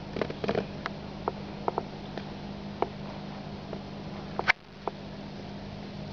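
A steady low hum with scattered small clicks and taps, and one sharp click about four and a half seconds in.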